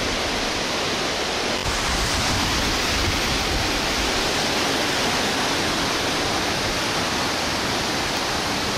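Waterfall: a steady, even rush of water pouring down into the pool at its foot.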